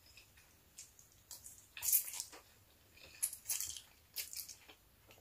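Close-up eating sounds: a fork working through a plate of pancit noodles and a forkful being slurped and chewed. A few short, sharp bursts, the loudest about two seconds in and a cluster about three and a half seconds in.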